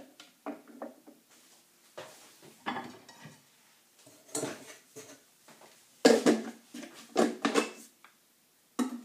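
Thermomix TM31 lid and mixing bowl being handled: separate clunks and clatters, the loudest run of knocks about six seconds in.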